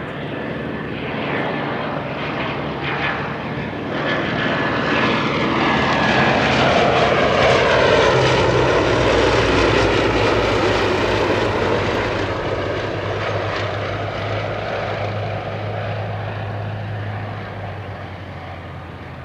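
Two Westland Lysander IIIAs flying past in formation, their Bristol Mercury nine-cylinder radial engines and propellers droning. The sound grows louder, is loudest about eight to ten seconds in with the pitch falling as they pass, then fades.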